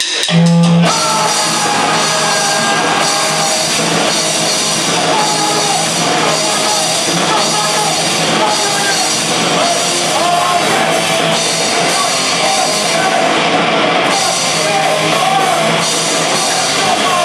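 Live punk rock band playing loud: distorted electric guitar, electric bass and a drum kit. A few drum hits open, and the full band comes in about a second in and keeps a steady, dense wall of sound.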